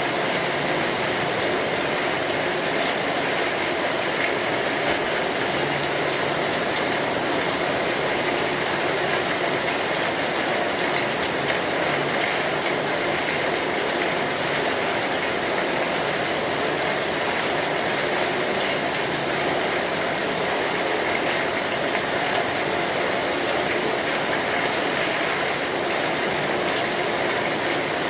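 Steady rain falling, an even hiss of water with no breaks.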